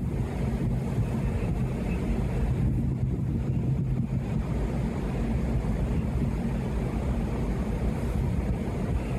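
Steady low drone of heavy marine diesel machinery, with a few constant hum tones over a rumble.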